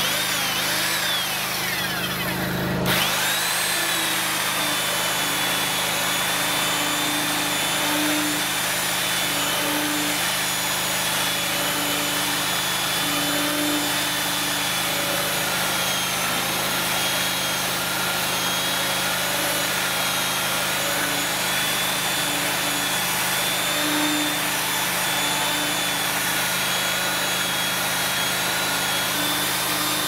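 Electric belt sander running on a rough-sawn timber board, sanding it back: a steady motor whine over the sanding, which swells and fades as the sander is worked along the board. The sound changes abruptly about three seconds in.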